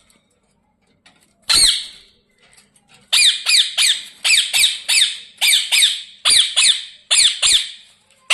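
Ringneck parakeet squawking: one harsh screech, then a rapid run of about a dozen loud, high screeches at roughly three a second. These are the calls of an agitated bird squabbling with its cage-mate.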